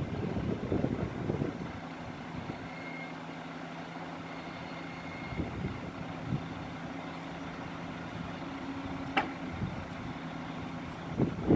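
Truck engine running steadily at the crane truck, driving the hydraulics of a Palfinger knuckle-boom crane holding a suspended load, with louder noisy bursts in the first second or two and near the end. A single sharp click about nine seconds in.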